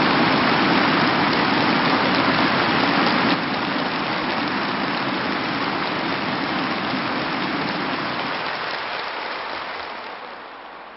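A large audience applauding, a dense even clatter of clapping that steps down a little a few seconds in and dies away near the end.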